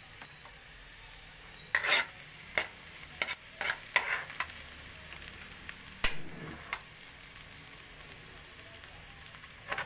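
Chopped garlic sizzling in cooking oil in a steel wok while a metal ladle scrapes and knocks against the pan as it stirs, in short clusters of strokes with a steady faint sizzle between them.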